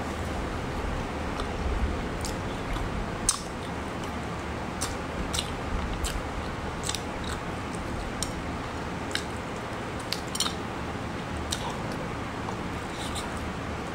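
Close-up eating sounds as sea snails and fried seafood are handled and bitten by hand: irregular sharp clicks and crackles, roughly one a second, the loudest about three seconds in, over a steady background hiss.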